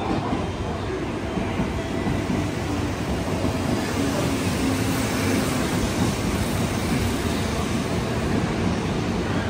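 Electric commuter train running at a station platform: a steady rumble of wheels on rail, with a faint low motor hum near the middle.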